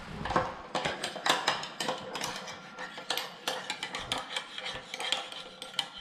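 Metal utensils clinking and scraping against a ceramic bowl as two children stir eggs, in rapid, irregular clicks, several a second. The eggs had partly frozen in the fridge.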